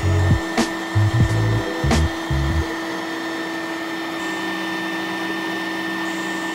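ShopBot CNC router spindle running with a steady high whine while its small end mill cuts a slot in a hardwood block. In the first three seconds there are uneven low rumbles and a few sharp clicks as the cutter bites into the wood; after that the spindle runs on steadily.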